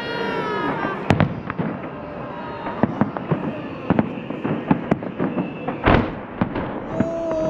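Fireworks salute going off: a dense string of sharp cracks and bangs, with one heavy boom about six seconds in.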